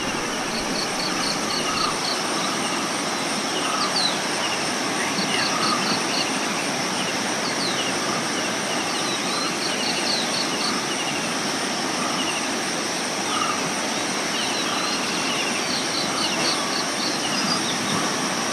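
River water rushing steadily over rocks, with a steady high insect drone on top and birds calling: every few seconds a quick run of about six short high notes, plus scattered chirps.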